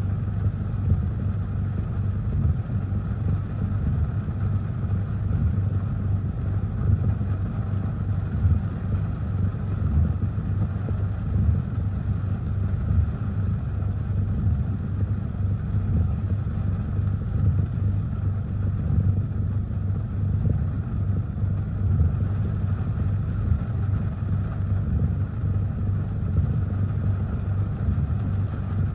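Steady low rumble heard inside a car's cabin: the car idling while wind from a tropical storm buffets it in heavy rain.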